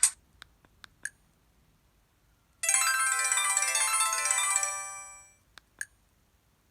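A preloaded ringtone playing from an Alcatel OT-660 flip phone's speaker: a short melodic jingle of many quick, bright notes lasting about two and a half seconds and fading out. Faint clicks and a short beep come before and after it.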